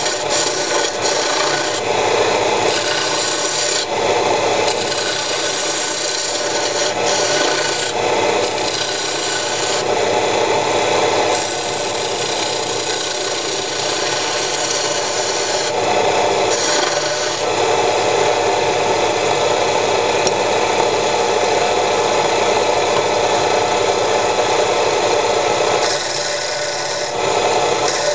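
Homemade wood lathe running, its electric motor and belt drive turning the spindle, while a small hand turning tool scrapes and cuts the spinning wooden workpiece. The hissing cutting noise shifts every few seconds as the tool is moved along the piece.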